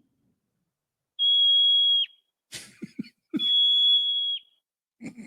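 Marmot whistling: two long, steady high-pitched whistles, each about a second long and ending in a quick drop in pitch, the marmot's alarm call.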